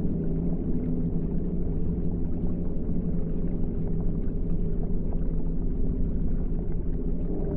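Ambient meditation drone: several steady low tones held over a dull rumbling noise bed, at an even level with no breaks.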